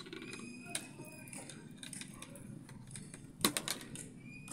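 Metal snap hooks on resistance tube bands clinking and clicking as a band is handled and clipped onto a handle, with a quick run of sharp clicks about three and a half seconds in.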